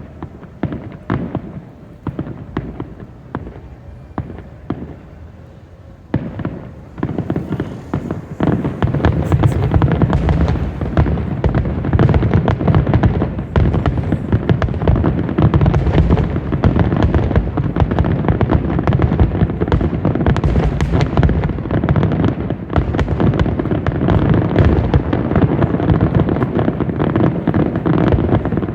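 Fireworks finale: a few seconds of scattered bangs, then from about eight seconds in a dense, continuous barrage of shells bursting and booming, much louder, with no gaps between the reports.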